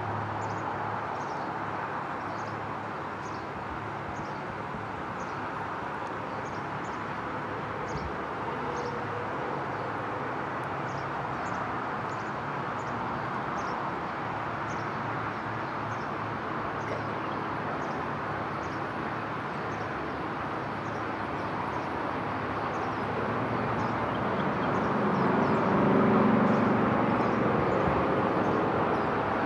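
Steady outdoor ambient noise recorded through a phone's plug-in Boya BY-MM1 microphone: a continuous din with a low hum and faint high chirps repeating about once a second. The din swells louder and lower about 25 seconds in.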